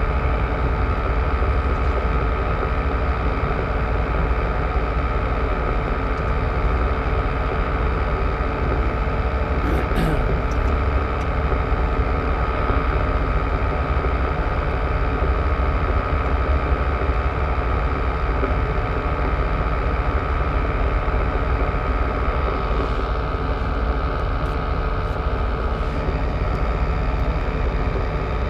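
Tour boat's engine running steadily while underway: a constant drone with a strong low rumble and steady tones, unchanging in level.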